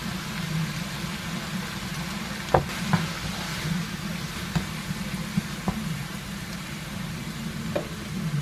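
Food sizzling in a nonstick frying pan as it is stirred with a wooden spatula, the spatula knocking on the pan a few times, the sharpest about two and a half and three seconds in. A steady low hum runs underneath.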